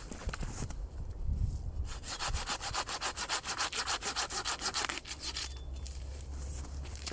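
Hand saw cutting through a pole with quick, even rasping strokes, starting about two seconds in and lasting about three seconds.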